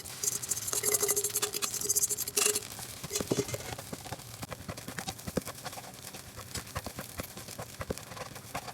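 Spatula clicking and scraping against a pan as fried rice is stir-fried, a rapid irregular run of light knocks, with a sizzling hiss through the first couple of seconds.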